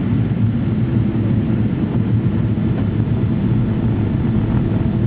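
Steady low cabin rumble of a Boeing 777 airliner, its engines and the air rushing past heard from inside the passenger cabin.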